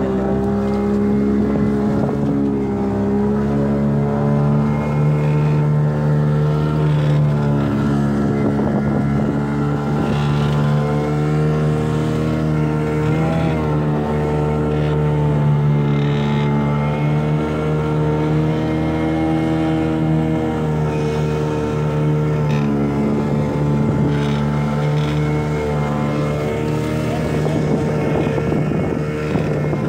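Motorboat engine running steadily under way, its pitch shifting slightly up and down a few times.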